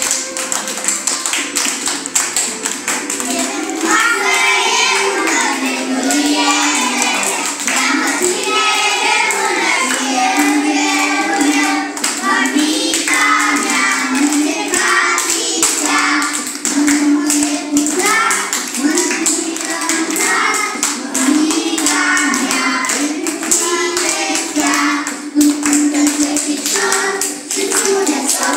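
A class of young children singing a song together and clapping their hands in time; the singing starts about four seconds in, with the clapping before and under it.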